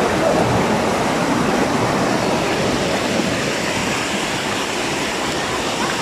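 Stream water cascading over rock steps of a small jungle waterfall: a steady, even rush.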